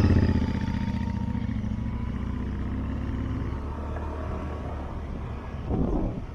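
Motorcycle engine running: loud at first, easing off in level over the first second or so, then settling into a steady low engine note.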